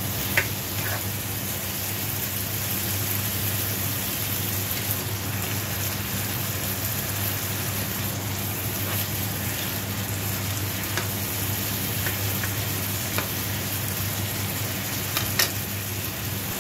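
Squid, bell pepper and onion sizzling steadily in a frying pan while being stirred with a spatula, over a steady low hum. A few sharp clicks come from the pan about half a second in and near the end.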